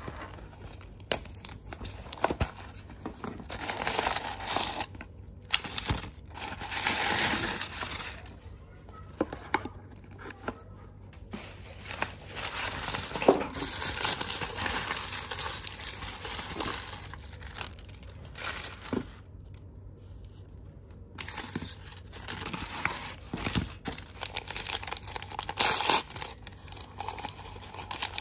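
Toy packaging being unwrapped by hand: printed paper and foil-like plastic wrappers crinkling and tearing in irregular bursts, with short pauses and scattered small clicks.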